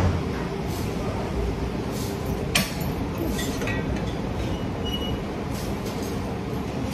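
Steady rumbling weight-room background noise, with one sharp metallic clank of weights about two and a half seconds in and a few fainter clinks.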